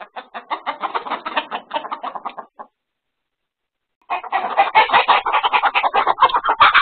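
Chickens clucking in rapid calls. After a short silence, a louder burst of agitated squawking comes in, with wings flapping and thumping as the flock panics, as chickens do when a predator gets in among them.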